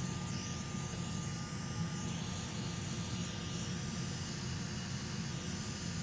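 Hot air rework station blowing steadily while a replacement MOSFET is soldered onto a graphics card board: an even rush of air with a faint steady high tone.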